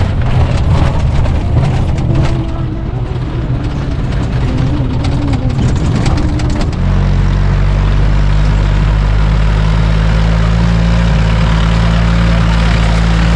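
Mahindra jeep engine running as it climbs a rough dirt road, heard from inside the cabin with rattling and knocking. About two-thirds of the way through it changes suddenly to a steady low engine drone.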